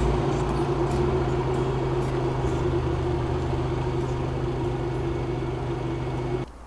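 A 1990s Geo Tracker's four-cylinder engine running steadily at low revs as the small 4x4 creeps forward over dirt and stands idling. The engine sound stops abruptly near the end.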